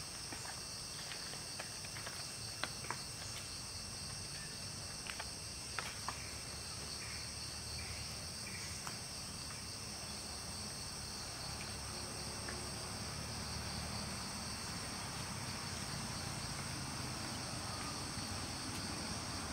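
Steady high-pitched chorus of insects such as crickets or cicadas, with a few sharp clicks or snaps in the first several seconds.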